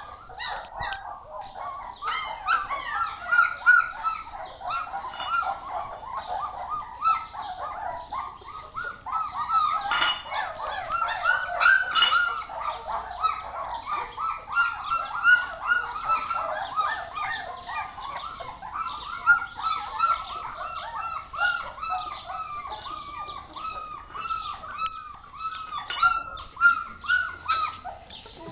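A litter of young puppies whimpering and yelping at feeding time, many short high cries overlapping one another without a break.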